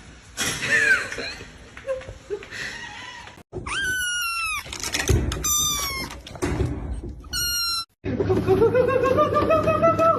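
Cats meowing: a few loud, high meows that fall in pitch at the end. Near the end comes a longer, lower, wavering yowl that rises in pitch.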